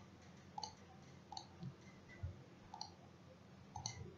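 Faint computer mouse button clicks: single clicks a second or so apart, then two in quick succession near the end.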